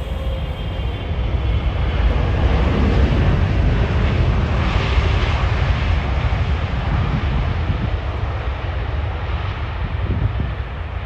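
A Boeing 777's jet engines during landing and rollout, over a steady deep rumble. The engine noise builds over the first couple of seconds as the airliner touches down, is loudest around the middle with a hiss on top, then slowly eases as it rolls along the runway.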